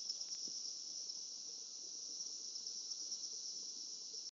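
Steady, high-pitched insect chorus with a faint pulsing, running on without a break and cutting off abruptly near the end.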